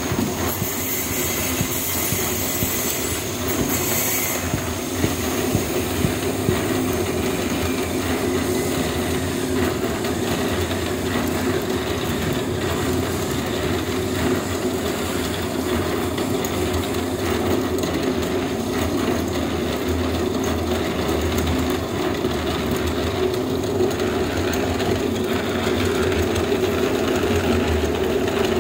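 A machine running steadily, a continuous mechanical drone with a rattling texture.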